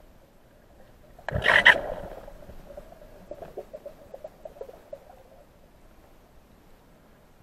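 A burst of air bubbles rushing past underwater about a second in, then a trail of small bubbling pops that die away over a few seconds.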